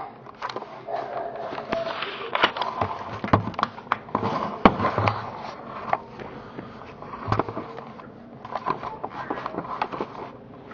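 Camcorder handling noise: irregular clicks, knocks and scrapes close to the microphone.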